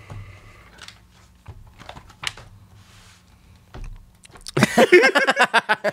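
Scattered light clicks and taps, typical of typing on a computer keyboard. About four and a half seconds in, a loud voice-like sound with a wavering pitch cuts in and runs to the end.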